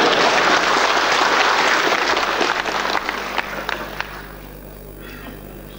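Large audience applauding in a hall, a dense patter of many hands clapping that dies away about four seconds in.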